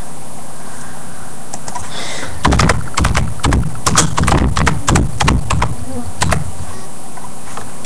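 A steady buzzing hum, with a run of irregular knocks and clicks from about two and a half seconds in, like objects being handled close to the microphone.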